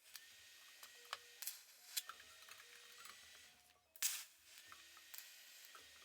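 Stainless steel grill bars clinking and clicking as they are set in place, several clinks leaving short ringing tones, over a faint steady hiss.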